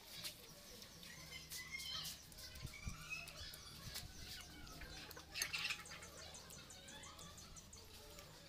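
Faint bird chirping, with a fast even trill of ticks a little past the middle and one brief sharp crack about five seconds in.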